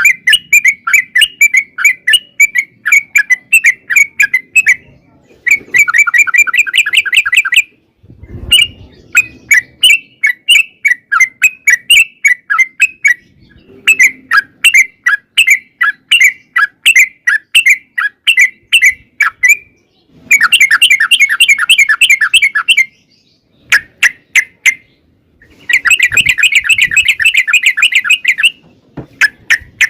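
Yellow-vented bulbul (trucukan) singing its long rolling song: runs of fast, bubbly, repeated notes lasting several seconds each, broken by short pauses.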